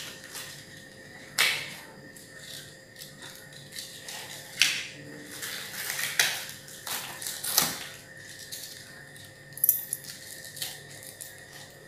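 Plastic wrappers crinkling and rustling in short bursts, several times over, as small wrapped packets are handled and lifted out of a cardboard box.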